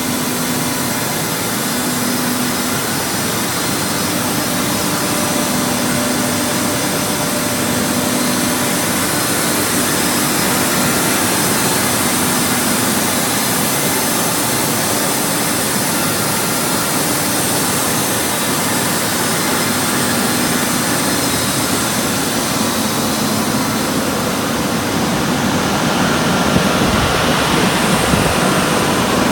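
Oil-free (oilless) air compressor running continuously: a steady, even rush of machine noise with a faint low hum that comes and goes, a little heavier near the end.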